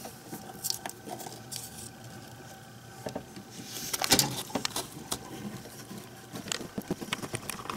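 Handling noise: scattered light clicks, taps and rubbing as a hand works a bolt loose by finger among engine-bay wiring, with a louder cluster of clicks about four seconds in.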